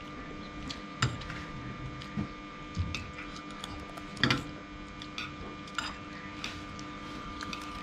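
Chopsticks and a spoon clicking and scraping against ceramic bowls while noodles are eaten: a string of scattered small clicks, the loudest a little past the middle, over a faint steady hum.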